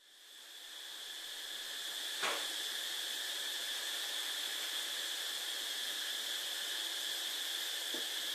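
Steady high-pitched background hiss, fading in at the start, with a short click about two seconds in and a fainter one near the end.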